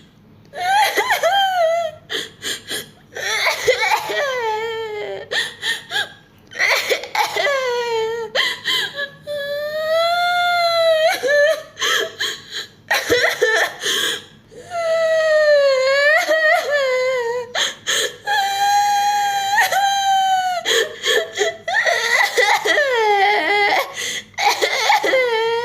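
High-pitched cartoon-style crying voice: long drawn-out "uwaaah" wails that bend up and down in pitch, broken by runs of short, quick sobbing gasps.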